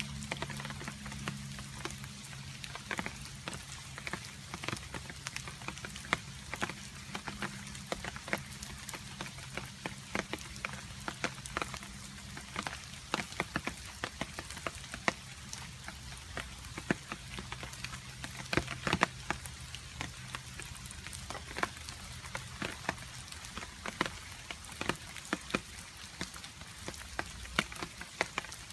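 Steady rain with water drops dripping, many sharp irregular drips over the patter. A faint low hum sits underneath and fades out partway through.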